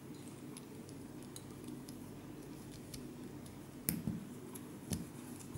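Plastic LEGO Technic parts being handled and pressed together: faint small ticks, then a few sharp clicks about four and five seconds in, over a faint low hum.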